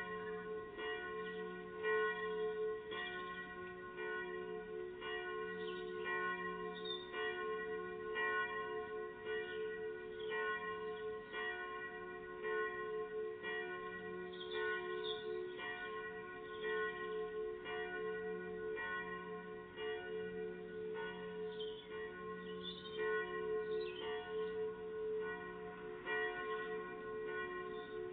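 Bells ringing, struck about once a second, each stroke ringing on over the next. Short high bird chirps come through a few times.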